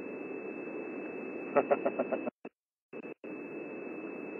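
Steady hiss of a live-stream audio feed with a faint high steady tone over it. Midway, a quick run of about seven sharp clicks comes through, then the sound cuts out completely twice.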